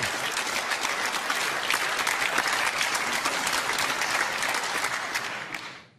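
Audience applauding, steady and loud, then dying away quickly near the end.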